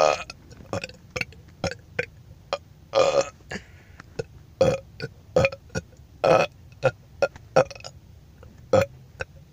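A person burping over and over: a string of short burps, roughly two a second, with longer drawn-out burps at the start, about three seconds in and just past six seconds.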